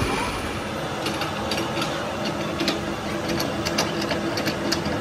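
A machine tool running with a steady hum, with scattered light metallic clicks and ticks.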